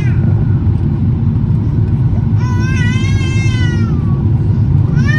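Steady low rumble of cabin noise inside a jet airliner on its landing approach, with an infant crying over it: one wavering, rising-and-falling wail about two and a half seconds in, lasting over a second, and another starting near the end.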